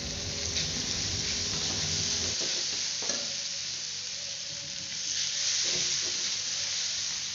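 Chopped shallots, garlic and chilli sizzling in hot oil in a wok while a metal spatula stirs them, with a few scrapes and a light tap about three seconds in.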